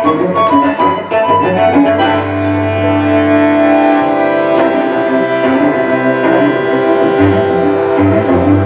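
Bandoneon and cello duo playing new tango live. About two seconds in, both hold long notes, a low cello note under sustained higher ones, for a couple of seconds before the moving lines resume.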